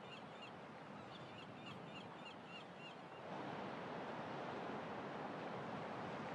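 Faint outdoor ambience: small birds chirping in quick repeated calls for the first three seconds. A little over three seconds in, it gives way to a slightly louder steady hiss of open-air background.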